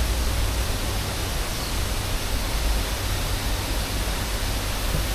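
Steady rushing of water from a small cascade spilling into a garden koi pond.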